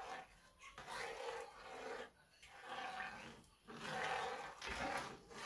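A spoon stirring coconut milk and brown sugar in a nonstick pan: swishing and scraping in swells, roughly one stroke a second.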